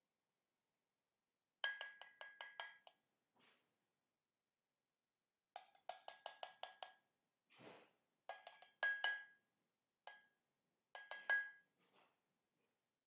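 Hammer tapping a chisel as in sculpture carving: quick runs of sharp clinking taps, about five a second, in four or five bursts with pauses between them, each tap with a short metallic ring. A brief scraping sound comes about halfway through.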